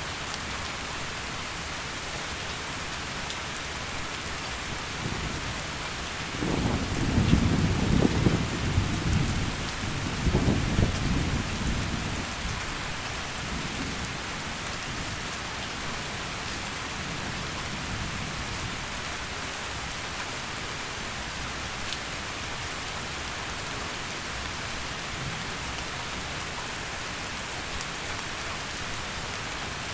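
Heavy rain falling steadily, with a roll of thunder rumbling up about six seconds in, swelling twice and dying away by about twelve seconds.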